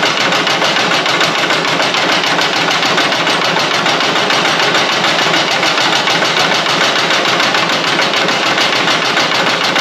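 Milling machine running and cutting metal in one steady continuous cut, with a fast even rhythm, as the table is fed by hand.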